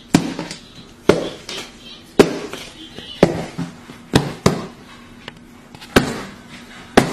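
Hands slapping down hard on a tabletop in a hand-slapping game between a man and a capuchin monkey: sharp single slaps about a second apart, with two in quick succession about four seconds in.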